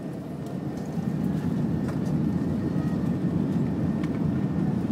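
Airbus A380 engines and airframe heard from inside the passenger cabin as the aircraft moves on the runway. It is a deep, even rumble that grows louder over the first second and then holds steady, the sound of thrust coming up for the takeoff roll.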